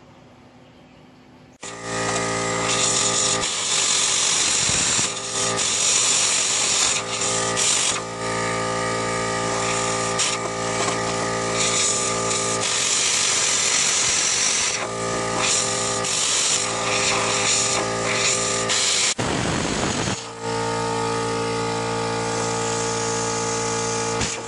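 Hand-held plasma cutter cutting through steel plate: the arc starts about a second and a half in, then a loud, steady hiss with a constant whine of tones. It breaks off briefly a few seconds before the end, then starts again.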